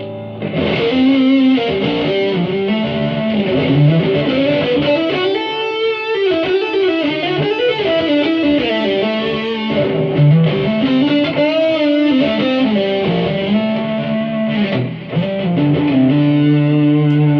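Electric guitar played through a Boss GT-100 distortion patch with boost: a lead melody with string bends and slides, settling into a held, sustained chord near the end.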